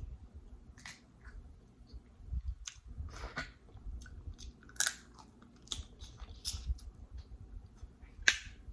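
Close-miked eating of seafood: chewing, with scattered sharp cracks and clicks, the loudest about five seconds in and near the end.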